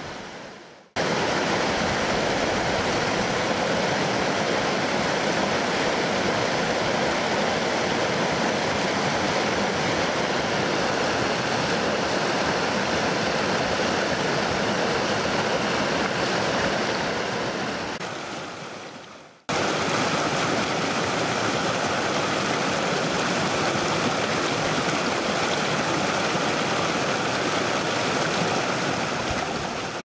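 Mountain stream rushing over rocks and fallen logs, a steady, even rush of water. It fades away and cuts straight back in twice: just under a second in, and again at about 19 seconds.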